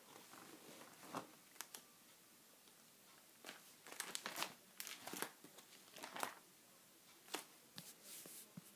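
Clear plastic sheet protectors in a ring binder crinkling and rustling as pages are handled and turned: quiet, short scattered rustles, a cluster of them in the middle.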